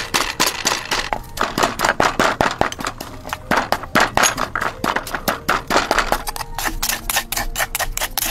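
Wooden pestle pounding in a mortar, a quick steady run of knocks at about four strokes a second, crushing chillies, garlic and salt into a paste.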